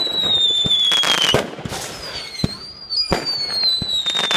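Fireworks display going off: sharp bangs and crackling, with a high whistling firework falling slowly in pitch, then a second whistle starting about halfway through.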